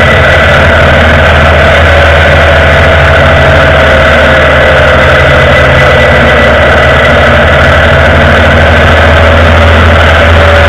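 Indian Vintage motorcycle's air-cooled V-twin engine running steadily at a constant road speed, picked up close by from the leg guard.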